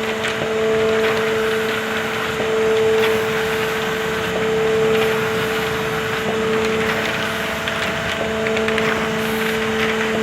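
ZF 391 envelope-making machine running, a steady hum under a mechanical clatter that swells about every two seconds as the machine cycles.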